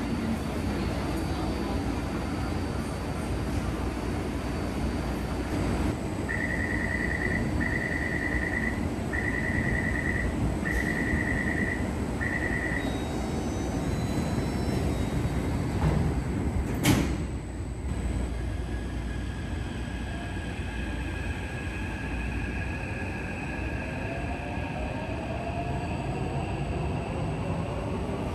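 Taipei Metro train at the platform: a door-closing warning of five evenly spaced beeps, then the doors shut with a sharp knock, and the train pulls away with its electric traction motors whining upward in pitch as it accelerates.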